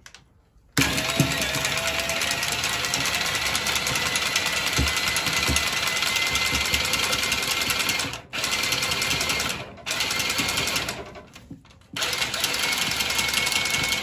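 Cordless Milwaukee M12 cutting tool running as it cuts through a copper heating pipe, a steady motor whine that stops briefly three times, about eight, ten and eleven seconds in.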